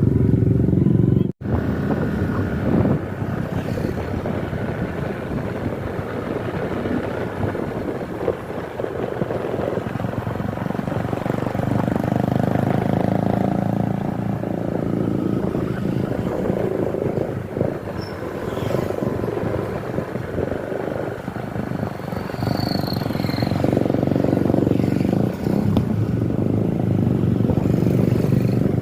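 Road vehicle engines running close by in steady traffic noise, with the sound cutting out for an instant just over a second in.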